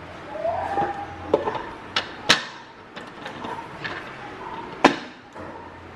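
Sharp knocks and clinks of a metal cake pan being handled as a baked chocolate cake is released from it. There are four distinct knocks, the loudest a little over two seconds in and another near five seconds.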